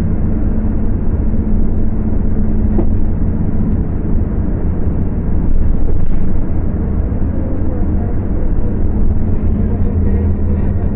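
Scania K250UB city bus's diesel engine running as the bus drives, a steady low drone with road noise, recorded through a phone microphone. This engine runs at high revs and is described as screaming a lot.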